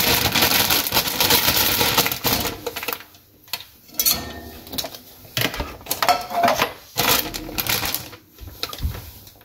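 Kitchen tap water running for the first two seconds or so, then a plastic produce bag crinkling and rustling in short, irregular crackles as it is handled.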